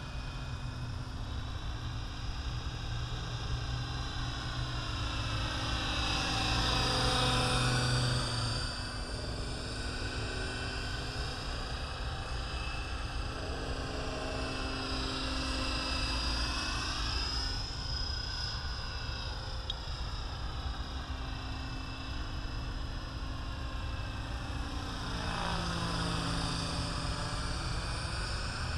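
Align T-Rex 550E electric RC helicopter in flight: a continuous motor and rotor whine whose pitch sweeps down and back up several times, loudest about seven seconds in, over a steady low rumble.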